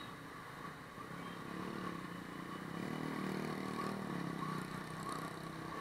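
Motor scooter engine and road noise heard from a moving motorbike in traffic, with other scooters around; the engine hum gets louder about two seconds in.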